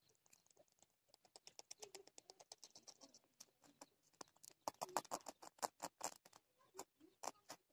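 Faint, rapid clicking and scratching from a large rat, loudest around the middle.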